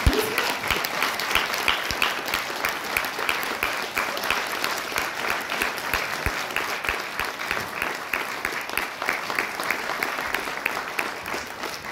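Audience applauding after a live song, a steady dense patter of hand claps.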